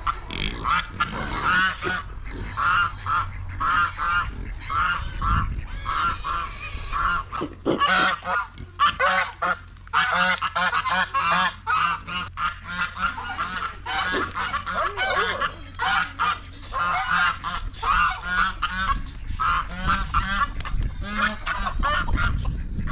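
Farmyard waterfowl honking and calling without pause, many short calls overlapping.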